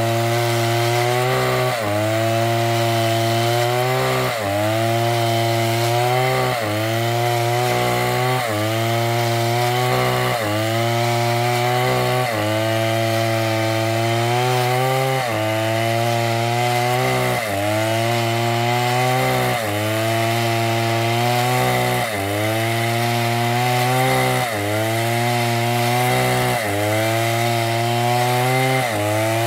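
STIHL two-stroke chainsaw running at high revs while ripping along a log. Its engine pitch dips and recovers regularly, about every two seconds, as the chain bites into the wood.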